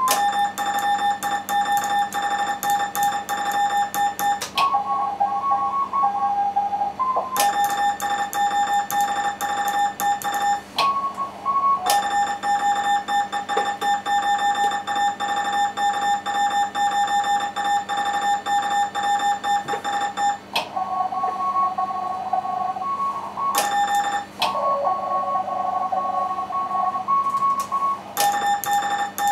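Morse code (CW) tones from an amateur radio station. A loud keyed sidetone near 800 Hz takes several long turns, and in the gaps between them other stations' replies come through the receiver as softer dots and dashes at slightly different pitches, the back-and-forth of contest contacts.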